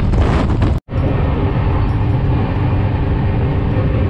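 Express passenger train running at speed, about 130 km/h. For nearly the first second there is a hissy rush, which cuts off abruptly. It gives way to the steady low rumble of the train heard inside the coach.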